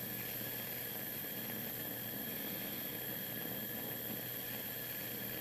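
Bunsen burner flame hissing steadily.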